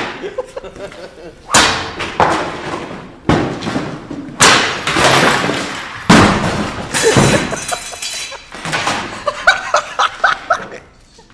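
A run of loud crashes and clattering, about five hard impacts a second or two apart, as objects are thrown and hit the floor and furniture. Short bursts of laughter follow near the end.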